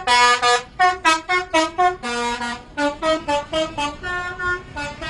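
Bus telolet horn, a multi-tone air horn, playing a quick tune of short toots, about four to five a second, with two longer held notes. The tune stops near the end.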